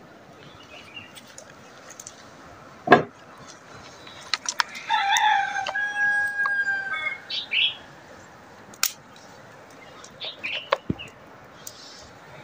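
A rooster crowing once: one long call about five seconds in, lasting a little over two seconds. A few sharp snaps sound around it, the loudest about three seconds in, and short high bird calls follow the crow.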